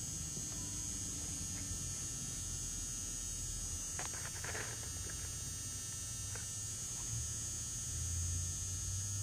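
Steady low electrical hum with a faint high whine over it, and a short cluster of light clicks and rustling about four seconds in.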